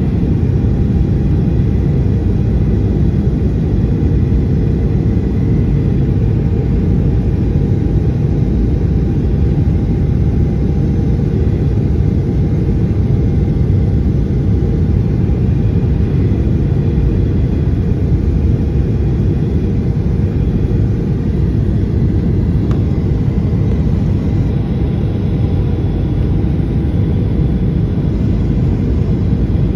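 Cabin noise inside a Boeing 737-800 descending on approach: its CFM56-7B jet engines and the rushing airflow make a steady, deep rumble, with faint steady hums above it.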